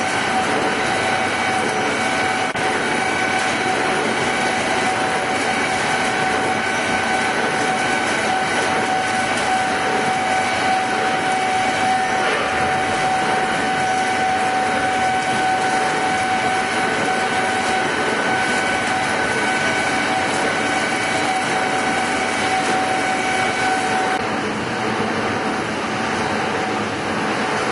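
Heavy industrial lathe running: a steady machine noise with a high-pitched whine that stops about three seconds before the end, while the broader machine noise carries on.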